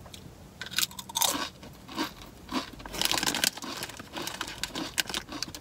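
A Sun Chips Harvest Cheddar multigrain chip bitten and chewed close to the microphone: a run of irregular crisp crunches.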